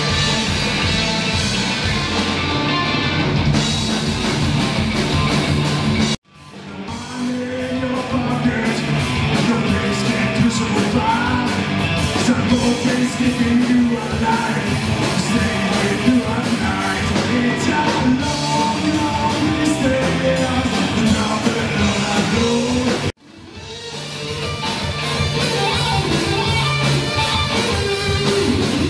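Rock band playing: electric guitar, bass guitar and drums with a man singing. The music cuts out abruptly about six seconds in and again about 23 seconds in, each time fading back up over a second as one song excerpt gives way to the next.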